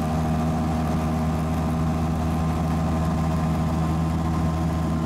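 Engine of a Starcraft 6x6 ATV running steadily while cruising at about 22 mph, a constant low engine note with no change in pitch.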